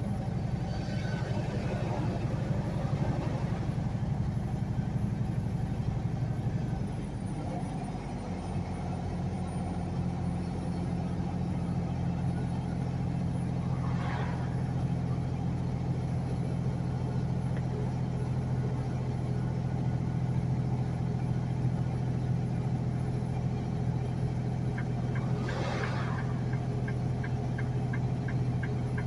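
Semi truck's diesel engine droning steadily, heard from inside the cab, with its note dipping and changing about seven seconds in. Near the end the turn signal starts ticking, about three clicks a second.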